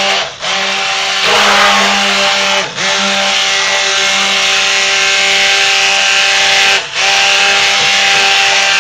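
Electric stick blender running submerged in a big batch of raw soap batter of oils and lye, blending it toward full emulsion. Its steady motor hum cuts out briefly three times and comes straight back on each time as the blender is pulsed.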